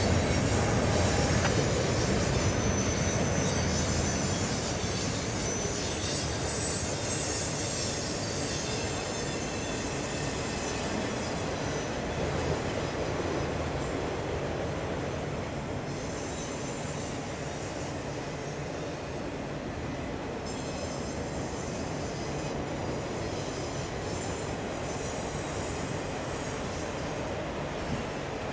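Freight train cars rolling past: a steady rumble and rattle of steel wheels on rail, with high, thin squeals from the wheels coming and going, most noticeable in the second half.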